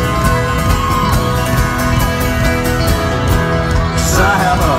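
Live folk-rock band playing an instrumental passage with banjo and a steady drum beat, heard from the crowd in a large arena.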